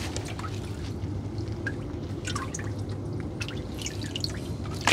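Water dripping and splashing in small irregular drops as a wet fishing net and a tangled fish are handled over the side of a boat, with a low steady hum underneath.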